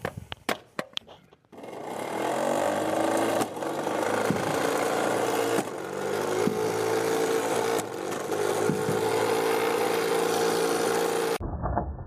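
A few clicks, then a robot's flywheel shooter motor spins up about a second and a half in and runs with a steady pitched hum at a fixed speed of about 1100 RPM. Its sound dips briefly near the middle as a wiffle ball goes through the shooter and is launched. The hum cuts off suddenly near the end.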